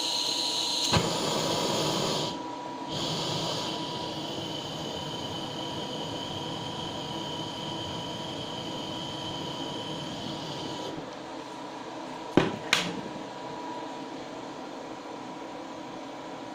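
Butane blowtorch hissing as its flame remelts the surface of a silver-solder loaf ingot to smooth out a crater. The hiss breaks off briefly about two seconds in, starts again and stops around eleven seconds in. Two sharp clicks follow.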